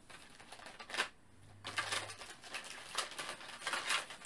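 Hands rummaging off to the side for more plastic figure display stands: a single light click about a second in, then a run of soft rustles and small plastic clicks.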